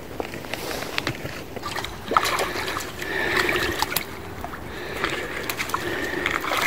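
Water sloshing, splashing and dripping as a mesh fishing keepnet is lifted out of the lake, with scattered small clicks and knocks.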